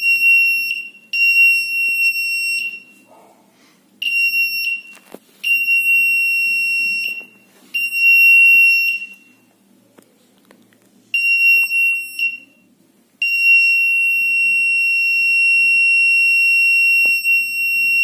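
Small electronic buzzer on a breadboard 555-timer touch-plate alarm circuit sounding a steady, shrill high-pitched tone. It comes in about seven bursts that start and stop as the touch wires are held and released. The last burst holds for about five seconds.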